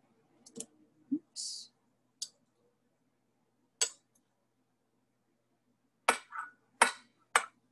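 Metal spoon clinking and knocking against a dish in a series of sharp taps as avocado is scooped and knocked off, with a short scrape about a second and a half in; the loudest taps come in the last two seconds.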